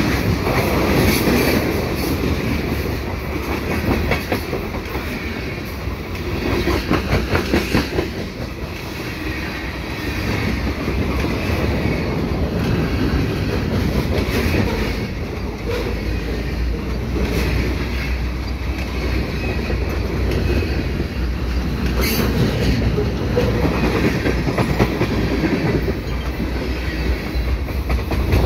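Freight train cars rolling past at close range, a continuous rumble with runs of rhythmic clickety-clack as wheelsets cross rail joints, the clacking densest a few seconds in.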